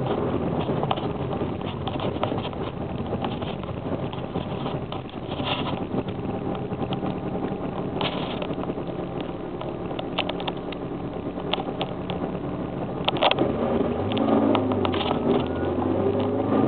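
Toyota Corolla 1.6 four-cylinder engine and road noise while driving, with scattered short clicks and knocks. Near the end the engine note rises as the car accelerates.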